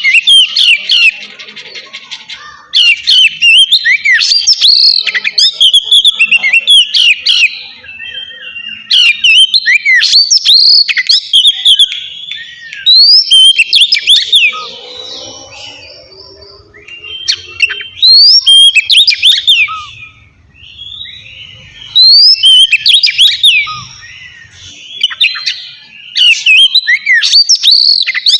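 Oriental magpie-robin (kacer) singing loud, clear whistled phrases with quick rising and falling notes, in bursts of a few seconds broken by short pauses.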